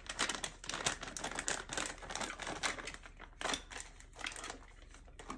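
Plastic snack pouch crinkling as it is handled: a dense run of crackles for the first three seconds or so, then a few scattered ones.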